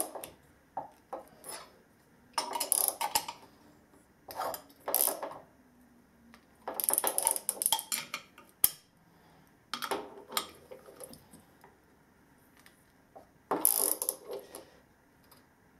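Ratchet wrench clicking in five short bursts, with pauses between, as the bolts holding an electric motor's casing together are tightened down hard.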